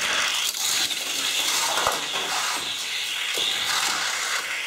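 Two Matchbox die-cast toy cars running fast down a plastic race track: a steady, high-pitched rattling hiss of small wheels on the track that eases off slightly near the end.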